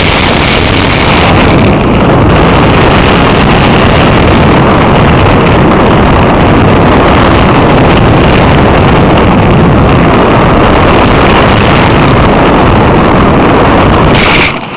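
Loud, steady rush of wind and propeller noise from an electric RC model Cessna 182 (E-max 822 motor, 9x5 propeller) in flight, picked up by a spy-pen camera on its windshield and close to distorting. It cuts off abruptly near the end.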